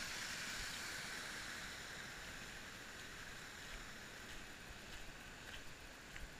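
Water rushing over a small rock-ledge waterfall in a creek, a steady hiss that slowly fades as it is left behind. A few faint clicks sound in the second half.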